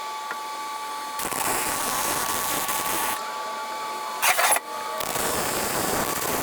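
Electric arc welding on the steel tyre carrier: a rough, crackling hiss that stops and starts in runs of a second or two, with a short louder burst about four seconds in.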